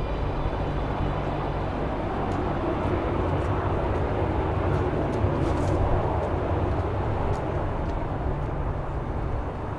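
Jet airliner engines running as a steady, even roar with no rise or fall.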